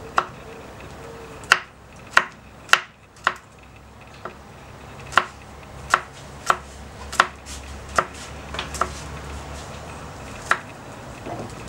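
Kitchen knife chopping green onion on a wooden cutting board: about a dozen sharp knocks of the blade on the board, irregularly spaced with short pauses between them.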